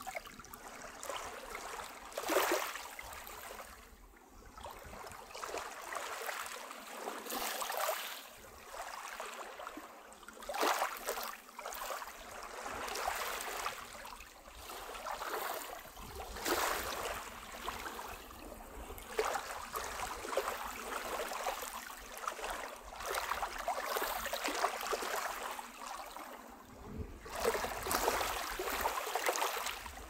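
A calm sea lapping at a pebble shore: small waves wash in and draw back over the stones in swells every few seconds.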